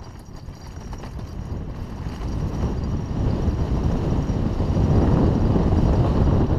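Wind rushing over the helmet-mounted camera's microphone, with a Haro hardtail mountain bike rattling and its tyres crunching over a rough dirt trail on a fast downhill. The noise builds steadily with speed and is loudest near the end.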